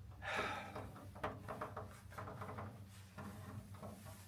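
Faint rustling and light knocks of a heavy car bonnet being handled over a blanket, in several short irregular bursts, the loudest about half a second in.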